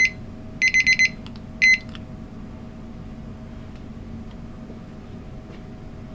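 Digital kitchen timer beeping in quick groups of four high electronic beeps, then stopping after a last short beep under two seconds in: the end of the rice's steaming time. A steady low hum continues underneath.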